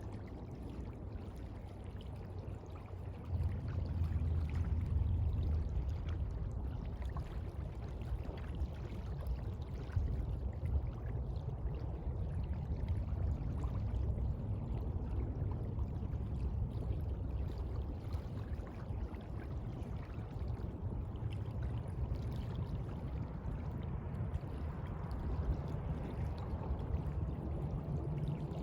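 Sea water washing and rushing in a steady noise, swelling louder about three seconds in.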